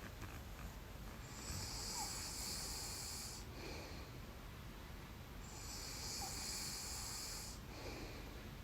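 A sleeping person breathing slowly and snoring: two long, airy breaths about four seconds apart, with a quieter pause between them.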